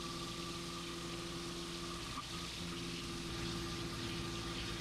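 CNC milling machine taking a finishing profile pass with a five-flute end mill at about 3200 RPM, a steady hum of spindle and cut under the hiss and splash of flood coolant.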